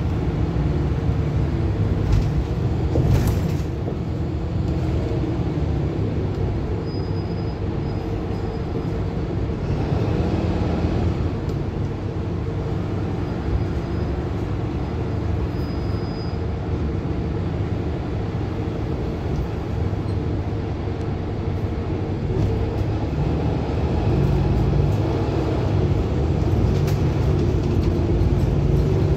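Cabin sound inside a Mercedes-Benz Citaro Hybrid city bus on the move: a steady low engine and drivetrain drone mixed with road noise.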